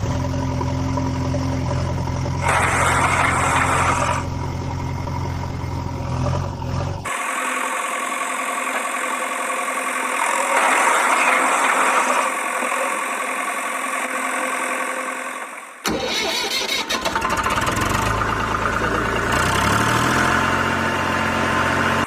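Dubbed-in engine sound effects: a motor running steadily for about seven seconds, then a harsher engine noise without the low hum. About sixteen seconds in, after a brief break, an engine cranks with a rapid clatter and catches, running again with its pitch stepping up near the end.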